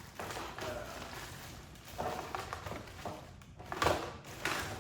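Handling noise: irregular rustling and a few knocks of objects being moved about, the loudest about four seconds in and again near the end.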